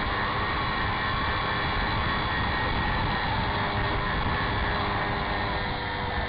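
RC model airplane's motor and propeller running steadily, with wind rushing over the camera mounted on the plane.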